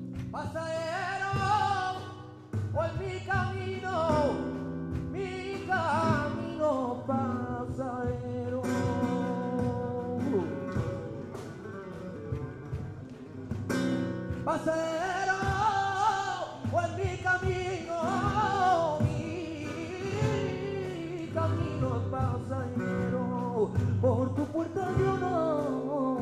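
Live flamenco song: a male flamenco singer (cantaor) sings long, wavering, melismatic phrases over flamenco guitar accompaniment. The voice drops out for a few seconds midway while the guitar carries on, then comes back.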